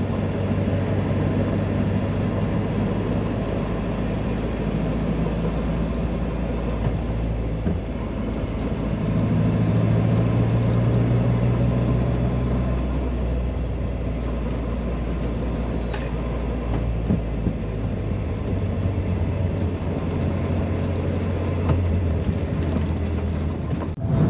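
Classic car's engine running steadily on the move, heard from inside the car with road noise. The engine note rises and gets louder about ten seconds in, then settles back a few seconds later.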